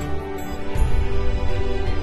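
Soft, tender background music from the drama's score, with sustained notes.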